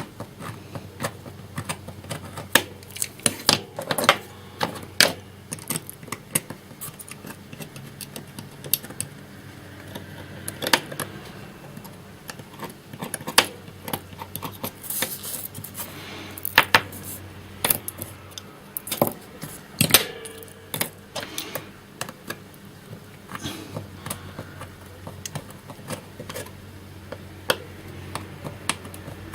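Hand tools cutting copper tracks on the back of stripboard: irregular clicks and scrapes of a track cutter and scalpel on the board, over a low steady hum.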